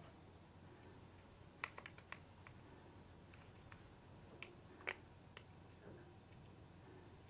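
Thin plastic yogurt cup clicking and crackling as it is squeezed by hand to loosen a set cheesecake out of it: a quick run of small clicks about a second and a half in, then two sharper clicks near five seconds, over near silence.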